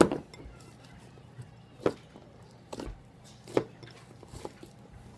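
Slime being squished and folded by hand, giving four or five separate sharp pops and squelches about a second apart, the loudest right at the start.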